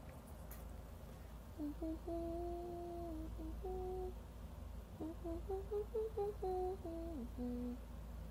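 A young woman humming a tune with closed lips, holding and stepping between notes in two phrases with a short break near the middle.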